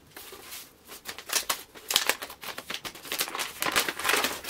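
Brown kraft paper wrapping crinkling and tearing as it is pulled open by hand around a book, a quick irregular run of sharp rustles and crackles.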